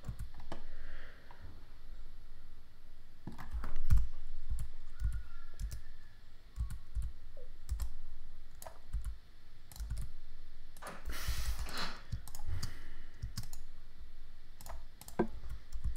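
Computer keyboard keystrokes and clicks, scattered and irregular, with a quick run of clicks about eleven seconds in. There is one louder low thump about four seconds in.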